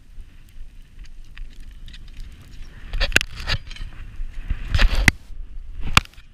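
Handling noise from a climber's jacket, gloves and gear rubbing and knocking against granite right next to a body-worn camera, with a low wind rumble on the microphone. Sharp clicks and scrapes come in two clusters about three and five seconds in, and once more near the end.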